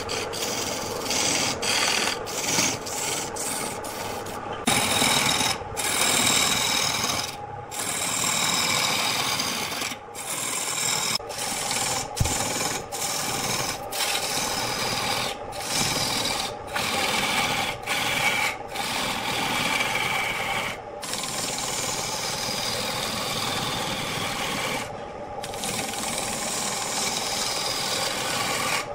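Hand-held turning chisel cutting a large block of wood spinning on an electric wood lathe: a continuous scraping rasp, broken by many short pauses as the tool comes off the wood, with faint thin whistling tones sliding down in pitch.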